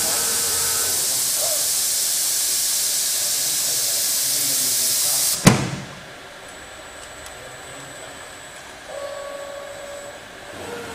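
Machinery in a robotic bottle palletiser: a loud steady air hiss for the first five seconds or so, ended by one sharp knock. After it comes a much quieter machine hum with faint steady tones.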